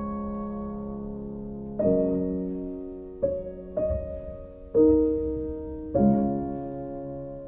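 Slow background piano music: a held chord fades, then five chords are struck over the next few seconds, each left to ring out.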